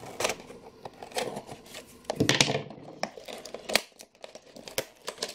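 Scissors cutting into the cardboard backing card of a blister-packed action figure, with the plastic bubble crinkling and tearing as the package is worked open: irregular snips and crackles, with a longer rustle about two seconds in.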